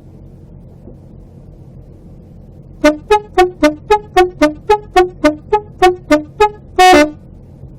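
Tractor air horn sounding a quick run of about fourteen short toots, alternating between two pitches at about four a second, then one longer blast near the end.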